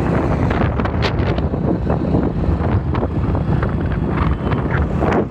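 Wind buffeting the microphone of a moving vehicle, with the low rumble of its engine underneath.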